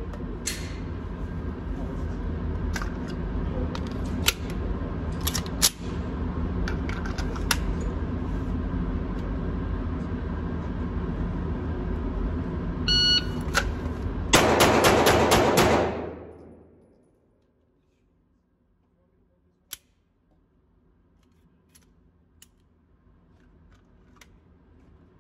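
A shot timer beeps, then a Canik SFX Rival 9mm pistol fires a rapid string of shots lasting about a second and a half. Before the beep there is a steady hum with scattered sharp clicks.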